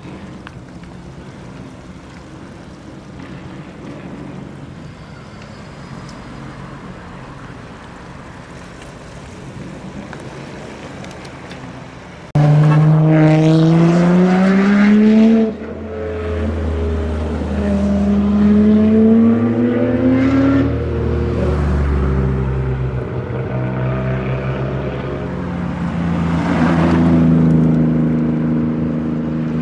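Modified car engines running at low level, then about twelve seconds in a loud exhaust starts suddenly and revs up, rising in pitch for a few seconds. A second rising rev follows a few seconds later, and engine sound carries on as cars pull away.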